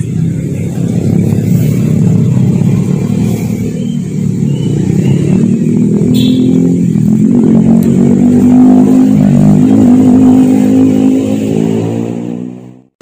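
A vehicle engine running loud and close, its pitch rising somewhat in the second half, then fading out near the end.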